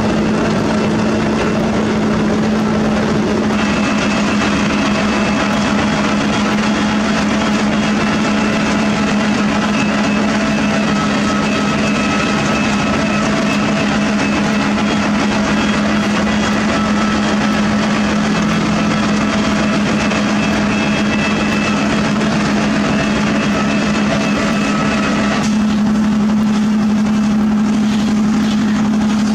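Sakai ER501F cold milling machine running steadily while it cuts asphalt, a loud continuous machine drone with a strong steady hum. The higher, grinding part of the sound thins out near the end.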